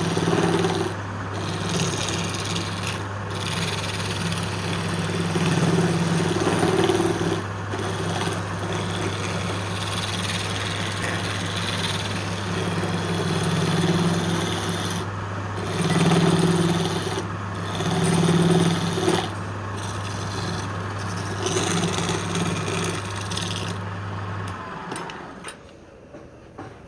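Wood lathe running with a steady motor hum while a turning tool cuts and scrapes the spinning wood, the cutting noise swelling and easing as the tool is worked. The motor hum stops near the end.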